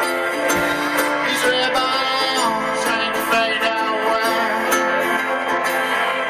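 A band playing live through a stage PA: guitars and sustained chords over a drum kit, running steadily through without a break.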